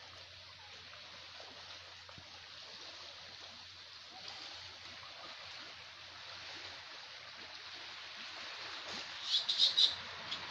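Calm sea water lapping gently against a rocky shore, heard as a steady soft hiss. Near the end a quick run of about four sharp high chirps stands out above it.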